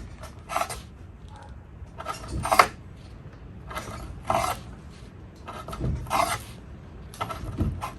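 Benchmade Mini Adamas knife blade slicing through 550 paracord in a series of short rasping cuts, about one every second and a half, a few ending in a light knock of the blade on the surface beneath.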